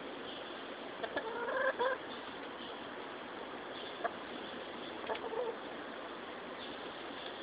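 Rhode Island Red chickens clucking: a short run of pitched clucks about a second in and another brief cluck about five seconds in, over a steady background hiss.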